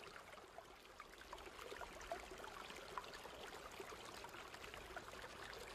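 Near silence: faint hiss with scattered, irregular tiny ticks.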